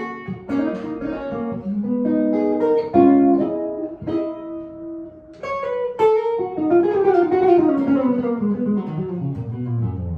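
1955 Gibson ES-295 hollowbody electric archtop with P-90 pickups, played with picked single notes and chords, then a long run of notes falling steadily in pitch through the second half.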